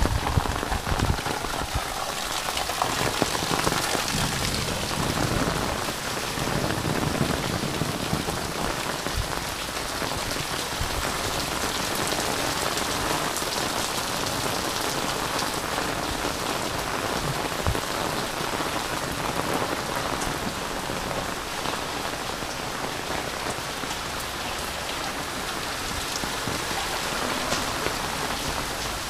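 Heavy rain falling steadily, drumming on an umbrella overhead and splashing on wet paving.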